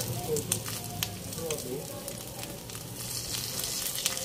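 Tuyo (dried salted fish) sizzling in hot oil in a wok, fully fried, with scattered sharp pops of spitting oil.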